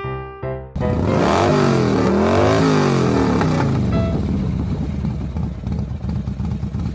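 A few notes of music, then an engine revving loudly over a rough noise: its pitch falls, rises and falls again, then it settles into a steady run that tails off.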